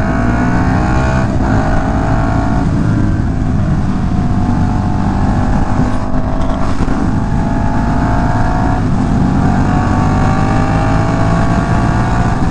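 KTM Super Duke's V-twin engine accelerating through the gears. The pitch climbs and drops back at each of four upshifts, and it rises more slowly in the higher gears. It is short-shifted because the engine makes its power low in the revs.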